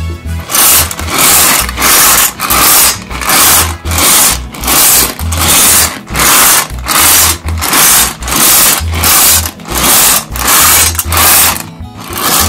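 An orange M&M's character tin turned in the hands, making loud, even rasping scrapes a little more than once a second, over background music.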